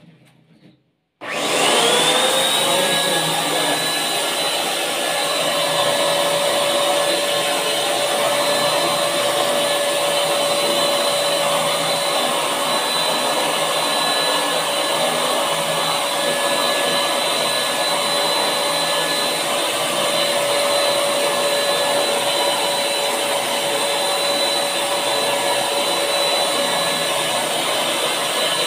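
Buildskill BPS1100 650 W HVLP electric paint sprayer's turbine blower switched on about a second in, its whine rising quickly to a steady pitch, then running steadily with a rush of air while paint is sprayed onto a wall.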